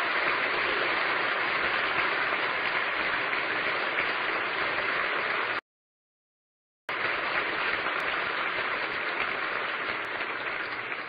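Audience applauding steadily. The sound drops out to dead silence for about a second midway, then the applause returns and begins to fade near the end.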